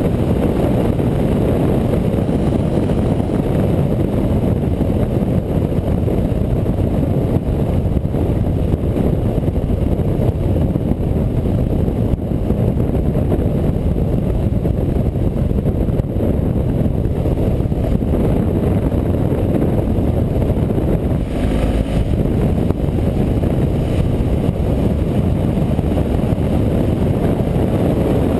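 Motorcycle cruising at a steady speed on an open road, its engine drone mixed with heavy wind rumble on the bike-mounted microphone. A brief rush of noise comes about three-quarters of the way through.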